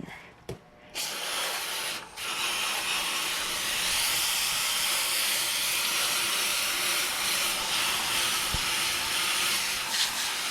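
Garden hose spraying water onto the coil of an air-conditioner condenser, a steady hiss that starts about a second in, with a short break about two seconds in.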